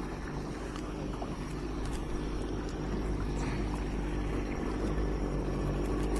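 A motorboat engine running steadily at low pitch, growing gradually louder, with a few light splashes from a kayak paddle.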